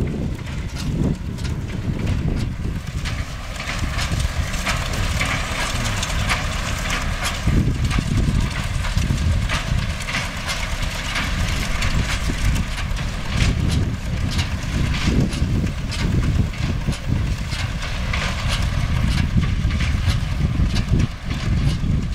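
MTZ-5 tractor's diesel engine running steadily while powering a hay baler, with the baler's mechanism clacking and knocking repeatedly over the engine sound.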